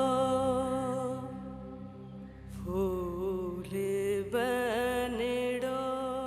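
Background drama score: a slow melody of long held, wavering notes, like a wordless chanted or sung line, over a low sustained drone.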